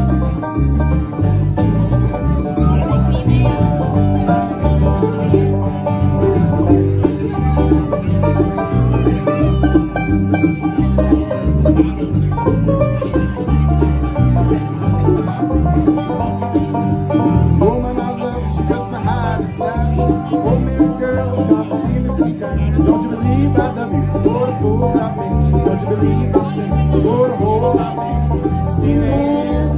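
Live bluegrass band playing an instrumental passage: banjo and mandolin over acoustic guitar and a steady electric bass line, amplified through a PA.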